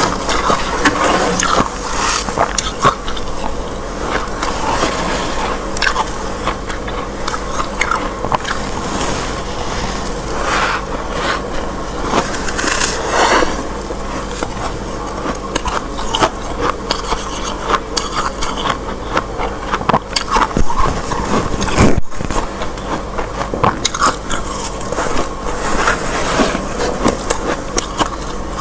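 Bare fingers scraping and scooping fluffy frost off the frozen shelves of a freezer compartment, a dense, continuous run of crunching and crackling.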